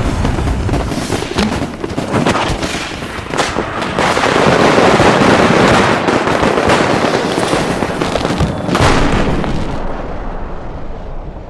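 Fireworks going off in a dense barrage of overlapping bangs and crackling, heaviest around the middle, with one more strong burst later, then dying away near the end.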